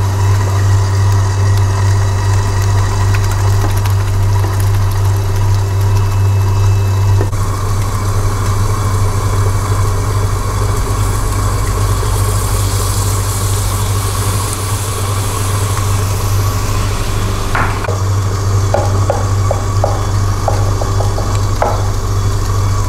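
A KitchenAid stand mixer's motor running steadily with a loud, even hum. A few light clicks come near the end.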